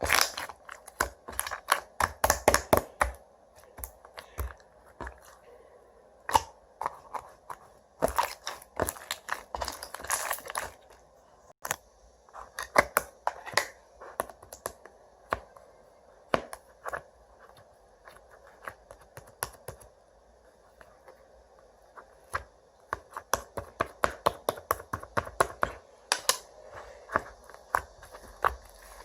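Slime being squished and pressed by hand, giving bursts of sharp clicking and crackling pops, with a sparser, quieter stretch midway.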